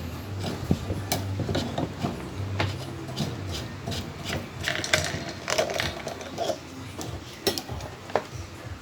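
Plastic parts of an electric fan being handled and taken apart: irregular clicks, knocks and rubbing scrapes, over a low hum in the first three seconds or so.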